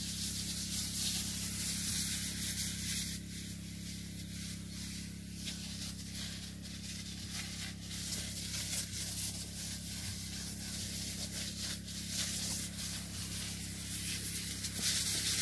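Hose-fed orchard spray gun hissing steadily as it sends a fine mist into the apple trees, with a steady low hum underneath.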